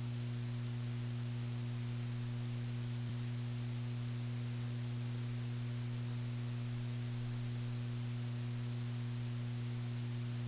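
Steady electrical hum with an even hiss underneath, unchanging throughout, from the room's audio feed while the mics are open and nobody speaks.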